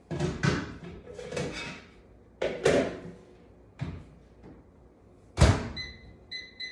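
A covered cooking dish knocks and scrapes as it is pushed into an over-the-range microwave, then the microwave door is slammed shut about five seconds in. A few short high keypad beeps follow as the cook time is set.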